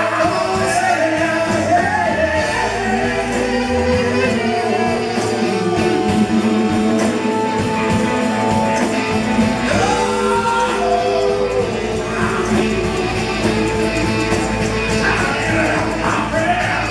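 Live rock band playing with singing: drum kit, congas and electric guitar under held vocal lines, with drum hits keeping a steady beat.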